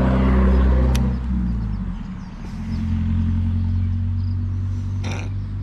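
A motor vehicle engine runs with a steady low hum. It eases off about two seconds in and then picks up again at a different pitch. A sharp click comes about a second in, and a short hiss near the end.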